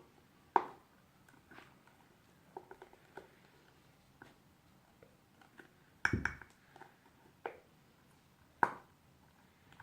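Light clicks and taps of a plastic glue bottle and its cap being handled over a plate, with sharp knocks about half a second in and near the end, and a heavier thump about six seconds in.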